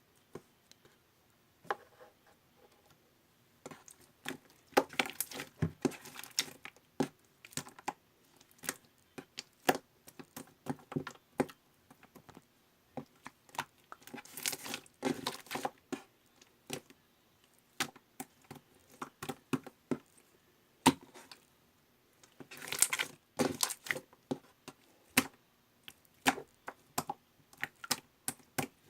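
Pearl slime being squeezed, folded and poked by hand, giving sharp pops and clicks at irregular intervals, with denser crackling runs about five, fifteen and twenty-three seconds in.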